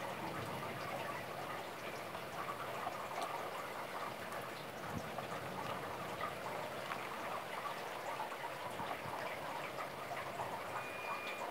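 Steady thunderstorm rain falling, with many individual drops ticking on nearby surfaces.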